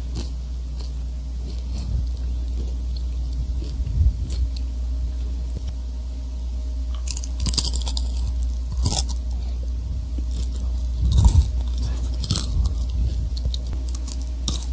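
Close-up mouth noises right at a condenser microphone: scattered clicks and short hissy bursts, the loudest about seven to nine seconds in and again around eleven to twelve seconds, over a steady low hum.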